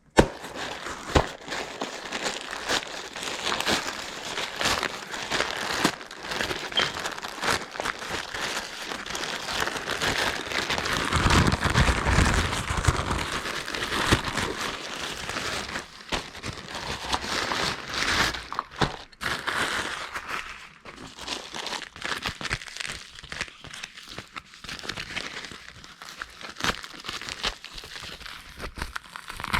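Packaging being crumpled, crinkled and torn open by hand, with many small clicks and knocks of handling and a heavier patch of rustling about halfway through.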